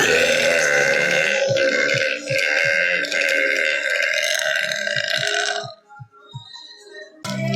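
One long, drawn-out belch of about five and a half seconds that wavers in pitch and stops abruptly, over background music with a steady beat.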